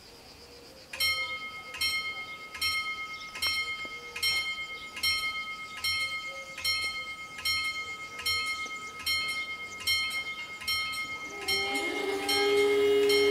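Level-crossing warning bells ringing in strokes about once every 0.8 seconds, starting about a second in: the crossing has activated for an approaching train. Near the end a steady humming tone joins, sliding up briefly as it starts.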